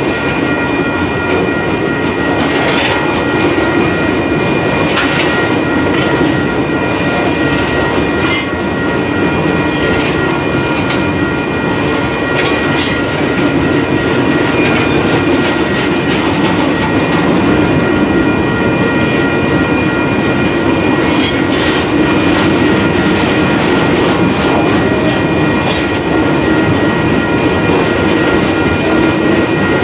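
Union Pacific freight train's boxcars rolling past at a grade crossing: a loud, steady rumble of wheels on rail with scattered clanks and knocks, and a steady high-pitched squeal over it.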